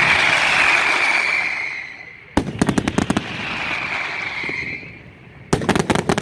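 Valencian-style fireworks: a loud pyrotechnic whistle that sinks slightly in pitch and fades, then a rapid string of sharp firecracker bangs, a second whistle, and another quick volley of bangs near the end.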